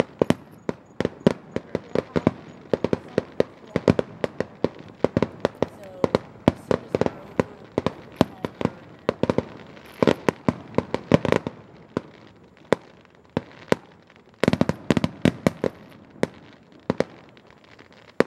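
Aerial fireworks bursting: an irregular rapid run of sharp bangs and pops, several a second, with a dense flurry about three-quarters through before they thin out.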